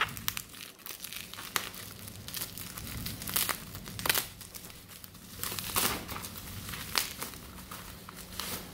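Plastic bubble wrap crinkling and rustling as hands pick at its tape and pull it open, with a few sharper crackles about a second apart.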